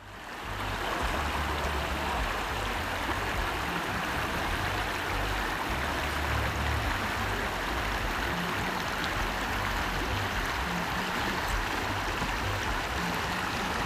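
Steady rushing of a stream's running water, fading in over the first second and then holding level.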